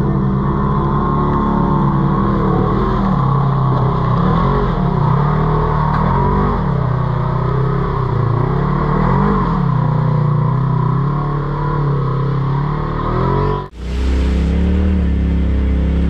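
Off-road vehicle engine under changing throttle, its pitch rising and falling every second or two as it works along the trail. Near the end it cuts suddenly to a deeper, steadier engine sound.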